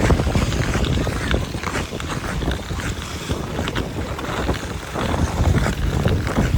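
Wind buffeting the microphone of a skater on the move, with ice-skate blades scraping and cutting across rough canal ice.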